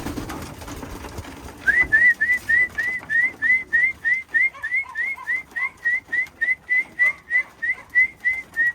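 A person whistling a fast run of short, rising notes, about three or four a second, starting about a second and a half in. It is the keeper's feed call that trains pigeons to come into the loft.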